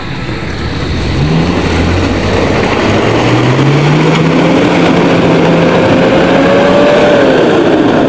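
4x4 pickup truck driving down a rutted mud track toward the listener, its engine growing steadily louder as it nears. The engine note climbs slowly over the first few seconds, holds, then drops near the end as the revs fall.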